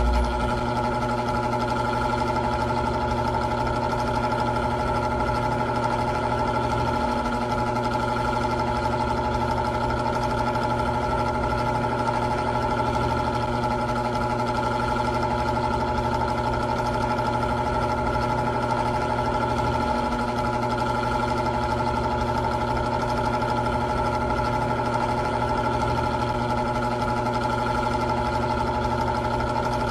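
Old electric fan running steadily: an even motor hum with several fixed tones under a soft whoosh of air.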